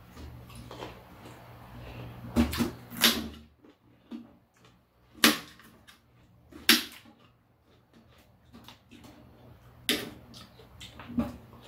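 Eating sounds: people chewing crisp slices of Korean melon (chamoe), with about six sharp mouth smacks and clicks spaced a second or more apart.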